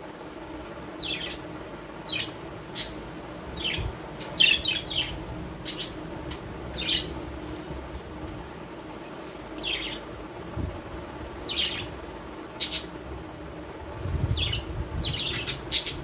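Small pet parrots chirping: short, sharp calls that slide downward in pitch, coming every second or so with quick runs of several together about four seconds in and near the end, over a steady low hum.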